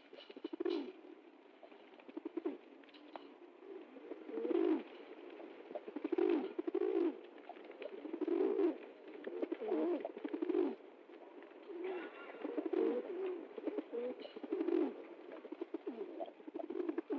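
Pigeons cooing, low-pitched coos repeated every second or two.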